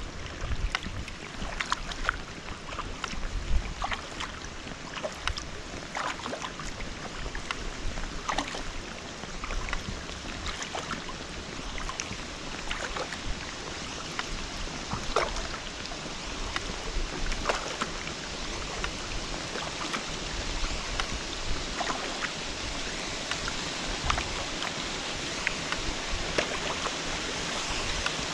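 Sea kayak paddle strokes on calm water: the blades dipping in, with scattered small splashes and drips running off the blade. Under them is a steady hiss of falling water that grows fuller toward the end as a small waterfall comes closer.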